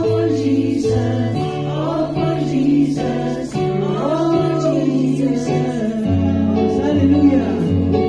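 Church singing: voices singing a Christian song over instrumental accompaniment, with a held bass line that changes note every second or so.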